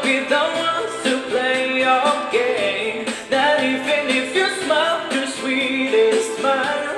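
Music: a man singing a pop ballad over a backing track.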